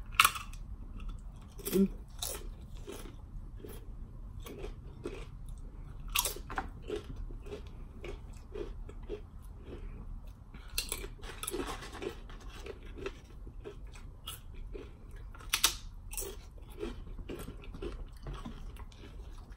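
Crunchy tortilla chips dipped in cheese sauce being bitten and chewed: a run of sharp crunches with steady chewing between them, the loudest bites near the start and around a third, halfway and three-quarters of the way through.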